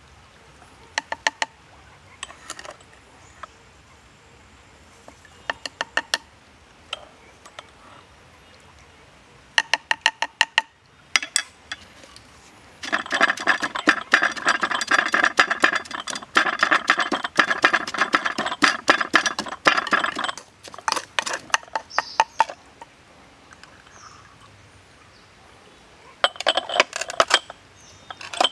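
Wooden pestle pounding and grinding salt, sugar and spice paste in a wooden mortar, a rapid run of knocks lasting about seven seconds in the middle. Before and after it come short clusters of taps and clinks as a plastic spoon scoops ingredients into the mortar.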